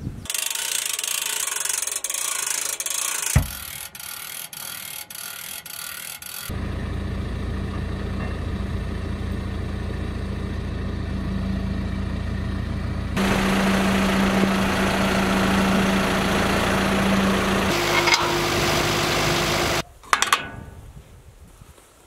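Metal fittings on a red steel wood-chipper chute clunk once and then click in quick succession as latches are worked, followed by a John Deere tractor's diesel engine running steadily with a held hum. The engine gets louder partway through and shifts pitch near the end before the sound cuts off.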